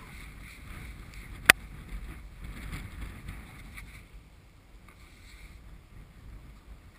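Typhoon wind gusting over the microphone as an uneven low rumble, easing slightly after about four seconds, with one sharp click about one and a half seconds in.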